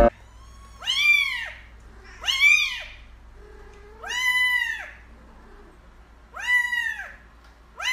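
A kitten meowing five times, each a high call that rises and falls in pitch, spaced about a second and a half to two seconds apart.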